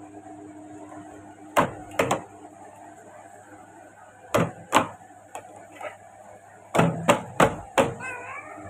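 A toddler slapping her palms on a large clear plastic water jug lying on its side, drumming on it: about nine sharp slaps in uneven clusters of two to four.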